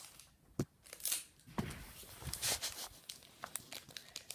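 A collectible-figure packet being torn open and its wrapper crinkled, with irregular rustles and a few sharp clicks.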